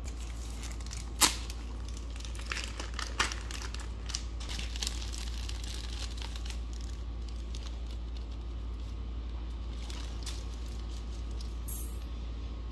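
Hand work on a small quad engine's top end with the piston exposed: a sharp click about a second in and another near three seconds, then crinkling and small clicks as rags, gasket material and small parts are handled, with a brief rustle near the end, over a steady low hum.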